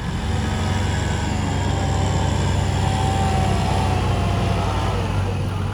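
Heavy diesel engine running steadily under load, a deep, even hum, with a thin high whine over it in the middle.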